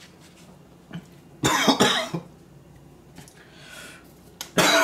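A man coughing from the burn of ghost-pepper-hot food: a short fit of several quick coughs about a second and a half in, and another coughing burst near the end.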